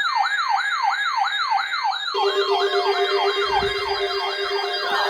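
Electronic siren sound, a fast falling sweep repeated about two and a half times a second. About two seconds in, a steady low tone and a second overlapping siren sweep join it, layered like synthesized intro music.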